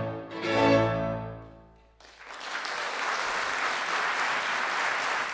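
Classical string music ends on a held chord that dies away, then audience applause starts suddenly about two seconds in and goes on steadily.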